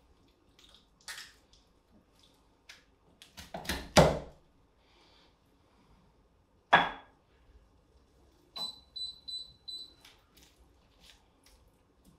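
Smoked chicken leg being pulled apart by hand: soft wet squelching as the skin and meat are torn, with two sharp louder tearing snaps about four and seven seconds in.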